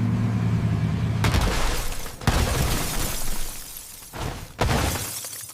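Car crash sound effects: a steady low engine drone, then about a second in a loud crash with shattering debris, followed by further crashing impacts about two, four and four and a half seconds in.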